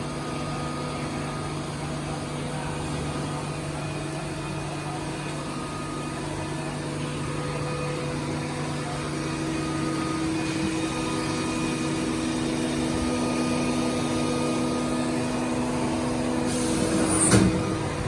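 Hitachi VM40II CNC vertical milling machine running, a steady machine hum with several fixed tones; one tone grows stronger about halfway through. Near the end comes a short burst of hiss with a sharp knock.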